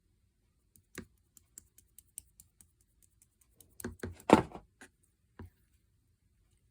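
Scattered small, sharp clicks, with a denser and louder cluster of crackling clicks about four seconds in.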